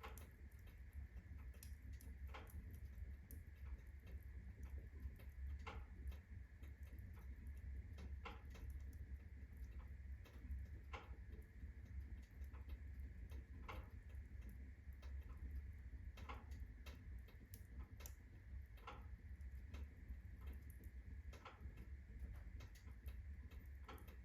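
Birch-log fire in a fireplace burning at full blaze, crackling with sharp, irregular pops every second or two over a low steady rumble.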